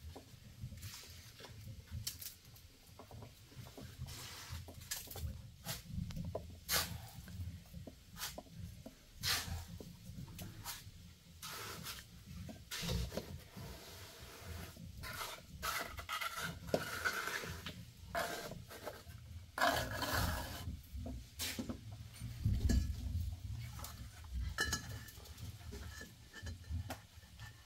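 Irregular clinks and knocks of metal objects being handled, like pots, pans and utensils, with a few short scrapes and some duller thumps near the end.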